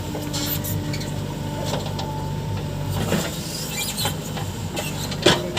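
Diesel engine of heavy machinery running steadily, with scattered clanks and knocks and a sharper knock near the end.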